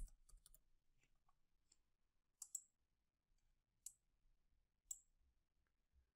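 Faint computer mouse clicks over near silence: a few light ticks at the start, two quick clicks about two and a half seconds in, then single clicks near four and five seconds.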